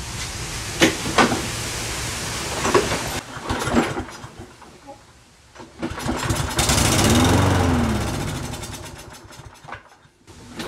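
Toro Recycler push mower's single-cylinder four-stroke engine pull-started on a shot of quick-start fluid: after some knocking from the first pulls, it catches about six seconds in. It speeds up briefly, then winds down and dies as the fluid burns off, the fire-and-die expected when running only on starting spray.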